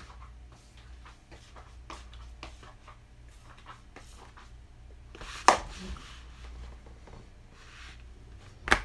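Scattered small knocks and rustles of someone moving about a small room, with a sharp knock about five and a half seconds in and a loud clunk near the end as the phone recording is handled.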